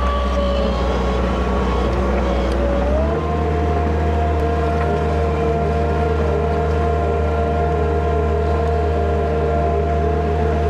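Skid steer engine running steadily, its pitch stepping up about three seconds in as the revs rise, then holding.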